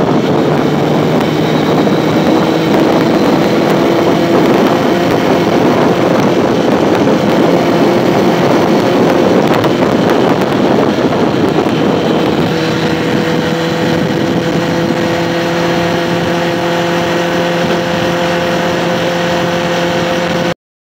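Engine of an open vehicle running at steady road speed, with heavy wind rushing over the microphone. The engine's pitch steps up slightly about two-thirds of the way through, and the sound cuts off suddenly just before the end.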